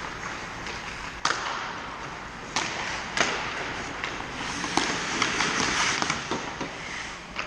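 Ice hockey skate blades scraping and carving on the ice, with several sharp clacks of sticks and puck. The scraping grows louder as players crowd the net and the goalie goes down for a save.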